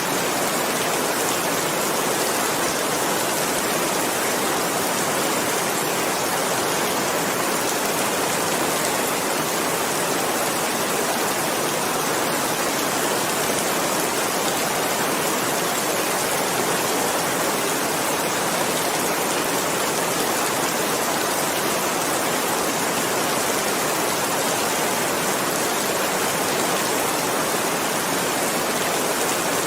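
Steady, even rainfall with a dense hiss of drops, no single drops standing out and no change in intensity.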